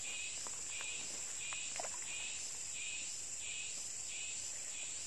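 Insects: a steady high-pitched buzz, with another insect chirping in a regular rhythm of roughly three chirps every two seconds.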